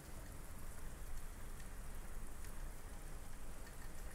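Water and sake simmering around snapper heads in a wok: a steady, faint bubbling crackle with scattered small ticks.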